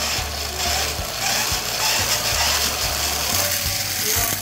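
Hot Wheels Hyper Wheels launcher being cranked, a fast ratcheting whir as it spins up the toy motorcycles' wheels. The whir drops away sharply near the end as the motorcycles are released.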